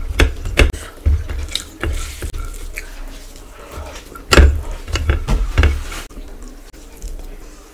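Close-miked wet eating sounds of rice and curry eaten by hand: chewing with sticky mouth clicks and lip smacks, and squelching as fingers mix the rice. The loudest burst comes about four seconds in as a handful goes into the mouth.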